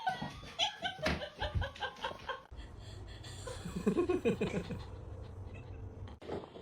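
A person laughing in short bursts, followed by lower voiced sounds after a cut.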